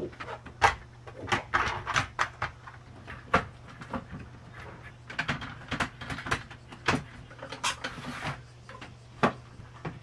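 Irregular clicks, knocks and scrapes of a window air conditioner's mounting frame being handled and fitted into a window sash until it sits in place.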